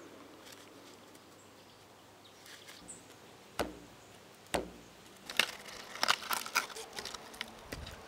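A knife chopping and scraping a green sapling: two sharp chops about a second apart, then a quick flurry of scraping strokes near the end as the blade works the bark.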